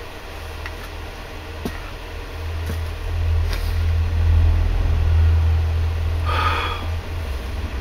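A low, steady rumble that swells in the middle, with a few faint clicks and a short breathy sound about six and a half seconds in.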